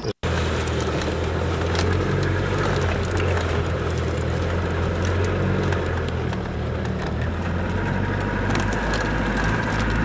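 Car driving along a road, heard from inside the cabin: a steady low engine drone with road noise.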